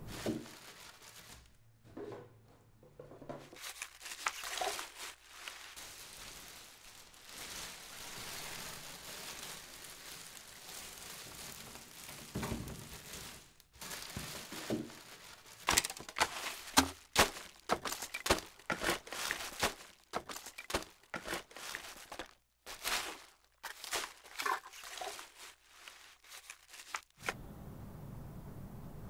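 Plastic crinkling and crackling in irregular bursts, sparse at first, then denser and louder through the second half before stopping a couple of seconds before the end.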